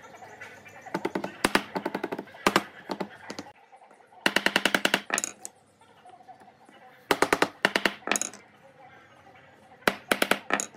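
Wooden mallet tapping pine strips down onto a wooden board. Sharp knocks come singly and in three quick runs.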